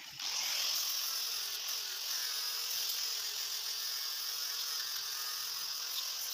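Angle grinder with a flap disc grinding the face of a steel block: a steady, loud hiss over the motor's even whine, cutting in suddenly just after the start.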